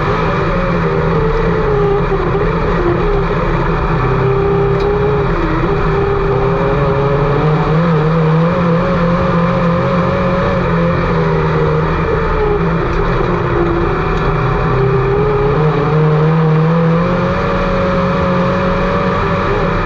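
IMCA Sport Mod race car engine running hard on a dirt oval, one engine dominant and loud, its pitch sinking and climbing several times with the throttle.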